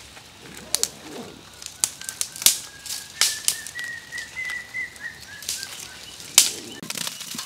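Dry twigs snapped and broken by hand: a string of sharp, irregular cracks with the brittle rustle of dry branches between them.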